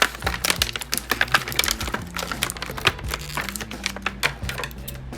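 Rapid, irregular clicks, taps and crinkles of hands handling a fashion doll and its plastic packaging.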